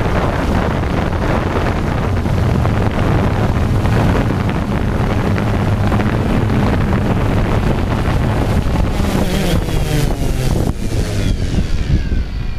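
Quadcopter drone's rotors heard through its onboard camera's microphone: a steady hum mixed with wind rush as it descends and lands in grass. Near the end the motors wind down in several falling whines.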